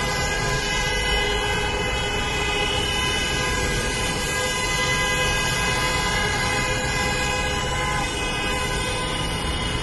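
Many car horns honking at once in a continuous, overlapping chorus of held tones over the rumble of traffic: drivers sounding their horns in protest.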